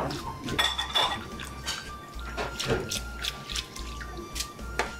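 Wire whisk beating soy milk into sesame paste in a glass bowl, its wires clicking and tapping against the glass many times, with a little liquid pouring and sloshing early on. The soy milk is being worked in gradually so the sesame sauce stays smooth.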